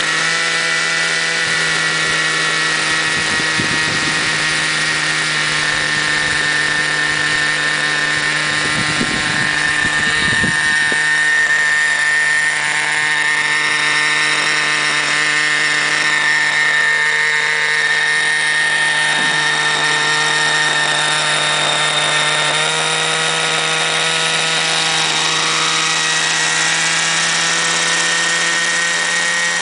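Thunder Tiger .50-size nitro R/C helicopter running on the ground: its glow engine and spinning main rotor make a steady, high-pitched drone, with small shifts in pitch near the start and about 22 seconds in.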